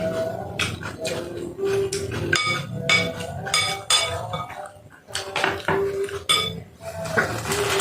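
Spoon tapping and scraping against a soup bowl during a meal: a run of sharp clinks, several with a brief ring.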